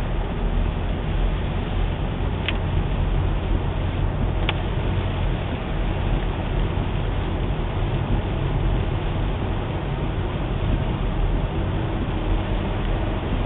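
Steady road and engine noise heard inside a moving car's cabin as its tyres run on a wet road. Two short clicks come a couple of seconds in and again about two seconds later.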